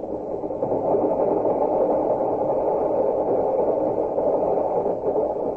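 Radio-drama sound effect of a passenger train running: a steady rumble of rolling noise over a fast, even clatter.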